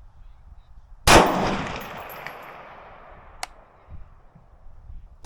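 Two gunshots about four seconds apart, one about a second in and the other at the very end, each followed by a long fading echo. A single sharp click sounds between them.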